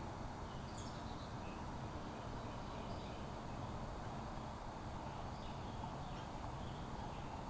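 Outdoor ambience: a steady low background rumble with a few faint, short, high bird chirps scattered through.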